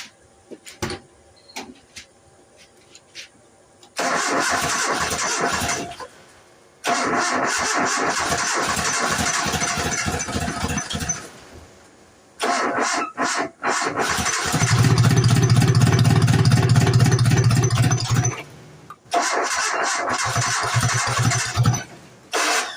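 The starter cranks the 1990 Nissan D21's four-cylinder engine in four separate attempts. The engine fires but won't keep running. The owner takes this for the engine being out of time after a new timing chain and guides were fitted.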